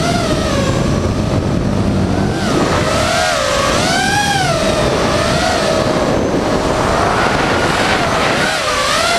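FPV quadcopter's electric motors and propellers whining, the pitch rising and falling with the throttle and highest about four seconds in.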